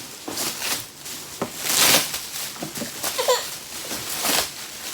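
Gift packaging rustling and crinkling in short bursts as a toy is taken out of its wrapping, with a little baby babble about three seconds in.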